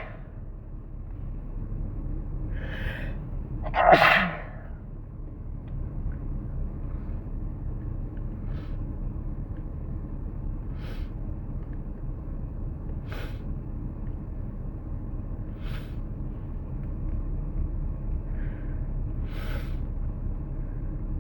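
A person sneezing: a drawn-in breath, then one loud sneeze about four seconds in. Several short, much fainter sounds follow every two or three seconds, the last after another in-breath, over a steady low background hum.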